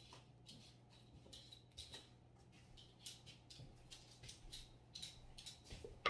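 Faint, irregular soft scrapes and swishes of a spoon spreading a dessert layer in a bowl, over a low steady hum.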